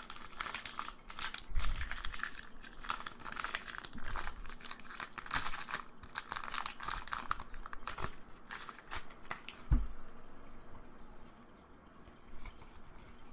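The foil wrapper of a Diamond and Pearl Great Encounters Pokémon booster pack crinkling and tearing as it is opened, with a single thump about ten seconds in. Then quieter handling of the cards near the end.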